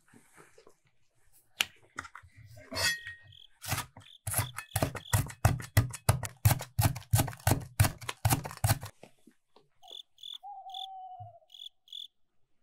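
A large kitchen knife thinly slicing the white of a green onion on a wooden cutting board, in a fast, even run of chops at about five a second after some softer handling and peeling sounds. Near the end come a few short, high chirps.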